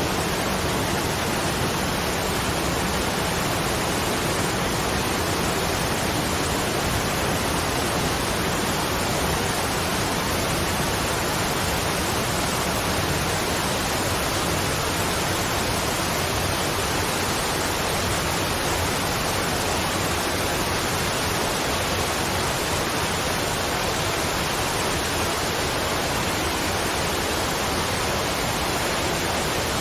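Waterfall: a steady, unbroken rush of falling water, even throughout.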